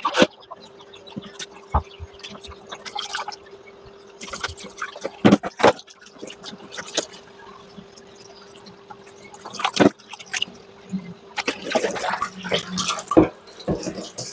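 Water splashing and dripping, with scattered knocks of a bowl and utensils being handled, over a faint steady hum.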